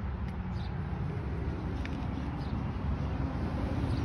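Outdoor ambience: a steady low rumble with a few short, faint high-pitched bird chirps.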